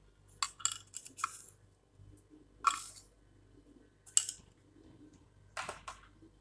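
A plastic spoon scraping and tapping in plastic spice boxes and against a plastic mixing bowl as spices are spooned in: a cluster of quick clicks about half a second in, then single short scrapes every second and a half or so.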